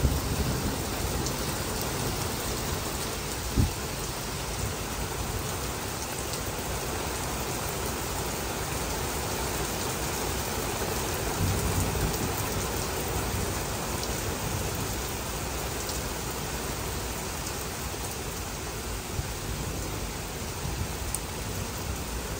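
Heavy rain falling steadily in an even hiss, with low rumbles of thunder at the start and again around the middle. A single short thump comes a few seconds in.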